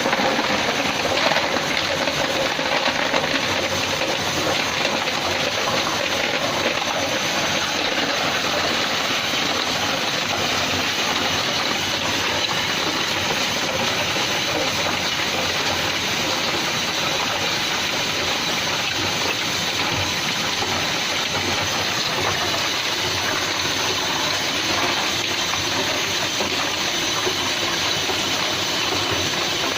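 Tube ice machine running, with a steady rush of circulating water and machine hiss.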